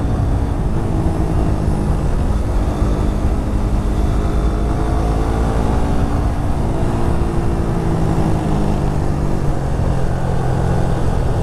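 Suzuki GSX Bandit motorcycle engine running steadily while being ridden, its pitch dipping and rising gently a few times with the throttle, under a heavy rush of wind noise.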